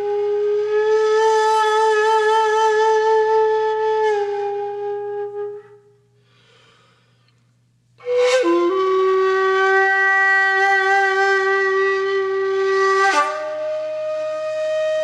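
Solo flute playing slow, long held notes: the first wavers with vibrato and fades out, and after a pause for breath a breathy, sharply attacked note bends down in pitch and settles. It then steps up to a higher held note near the end.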